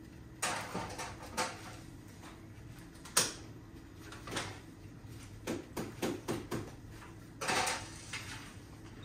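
Medical supplies handled by hand: rustling swishes of wrapping or drape and small knocks, with one sharp click about three seconds in, over the steady low hum of dialysis machines.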